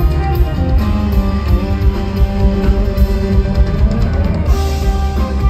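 Live band music: guitar over bass and drums with a steady beat.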